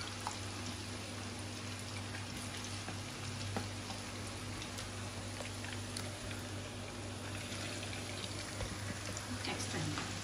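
Pakoras deep-frying in a pan of hot oil: a steady sizzling hiss with scattered small pops, over a low steady hum.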